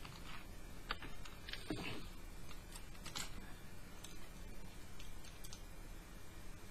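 Scattered light clicks, taps and short rustles of painting materials being handled on a table: the watercolour pad being shifted and a brush picked up. There are about a dozen irregular clicks, with a longer, fuller rustle a little under two seconds in.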